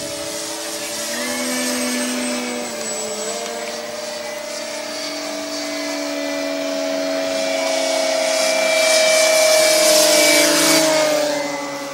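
Whine of the electric motors and propellers of several E-flite Cessna 150 foam RC planes in flight, several steady tones at slightly different pitches drifting as the throttles change. It grows loudest as one plane passes low about ten seconds in, then drops in pitch as it goes by.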